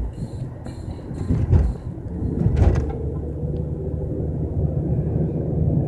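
Road and engine rumble heard from inside a moving car, with a couple of louder swells in the first half.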